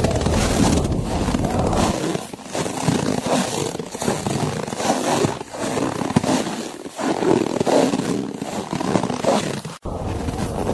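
Blizzard wind blowing in gusts, a steady rushing noise that swells and eases, with a brief dropout near the end.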